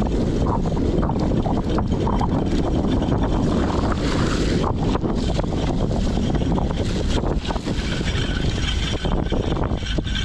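Wind rushing over the microphone of a GoPro on a cyclocross bike ridden fast over bumpy grass and mud. Under it are the steady rumble of the tyres and frequent small knocks and rattles from the bike jolting over the rough ground.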